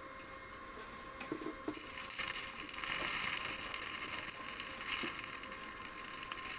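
Stick (MMA) welding arc burning at a steel square-tube joint: a dense crackling hiss that starts about a second and a half in, once the electrode strikes, and runs on steadily.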